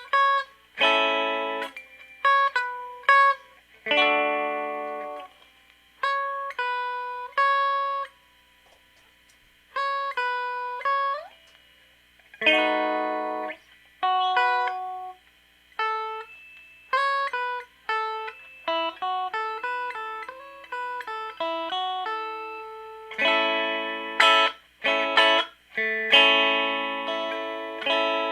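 Electric guitar played through a clean channel with no distortion: picked single notes and chords, each starting sharply and ringing down, with fuller strummed chords in the last few seconds.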